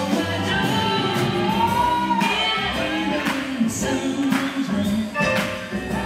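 Slow boogie-woogie dance music: a sung song over a band with a steady drum beat.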